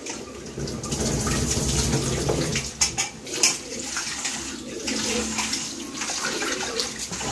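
Tap water running into a steel bowl of rice while a hand swishes and rubs the grains to wash them. A few sharp knocks stand out about three seconds in.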